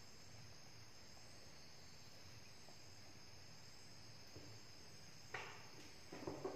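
Near silence: room tone with a faint, steady high-pitched whine. A sharp click comes about five seconds in, and a few soft knocks follow near the end.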